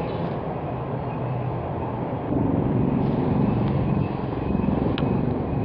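Gas station fuel dispenser pumping unleaded gasoline into a scooter's tank: a steady mechanical hum over traffic noise, getting louder about two seconds in, with a couple of faint clicks near the end.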